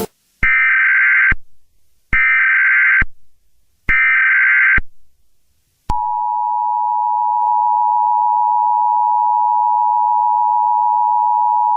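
Emergency Alert System tones: three short bursts of warbling SAME header data tones about a second and a half apart, then, about six seconds in, the steady two-tone EAS attention signal that sounds continuously.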